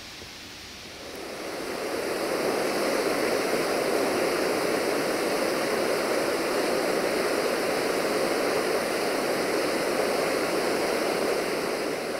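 Waterfall: a steady rush of falling water that fades in over the first two seconds and fades out near the end.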